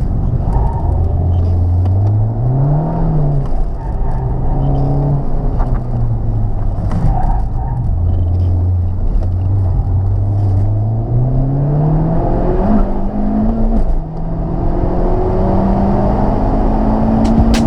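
Honda Civic Type R's turbocharged four-cylinder engine driven hard, its pitch repeatedly climbing under acceleration and dropping off as the driver lifts or shifts, over steady road and wind noise.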